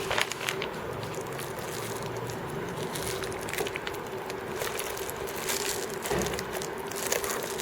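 Packaging being handled and opened: scattered crackles and crinkling rustles with a few soft clicks, over a steady faint hum.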